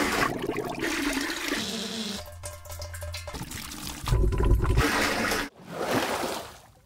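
Rushing water in a string of separate takes that cut abruptly from one to the next: a few seconds of steady rush, a quieter stretch, a louder burst with a deep rumble, then a last swell that fades out.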